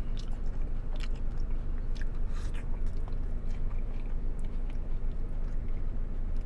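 A person chewing a mouthful of crispy hard-shell taco, with irregular sharp crunches scattered through the chewing.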